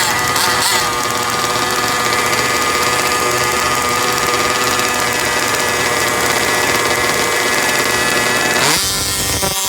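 Small two-stroke engine of a large-scale gas RC car idling steadily, then revving up sharply near the end.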